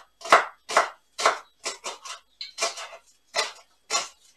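Kitchen knife coarsely chopping green garlic on a wooden cutting board: a quick, uneven run of knocks, about two or three a second.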